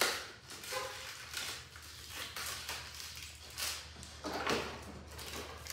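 A cardboard blister pack crinkling and rustling as it is folded and handled: a run of short crackles at uneven moments, over a low steady background hum.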